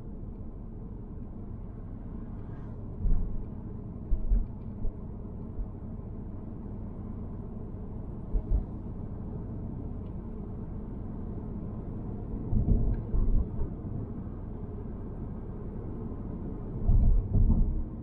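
Steady low rumble of a car driving, heard from inside the cabin, with a few short low thumps and a cluster of them near the end.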